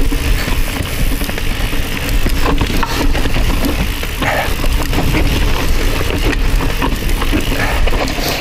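Mountain bike riding fast down a rocky trail: wind buffeting the GoPro's microphone and a rolling tyre rumble, with frequent knocks and rattles from the bike over rocks.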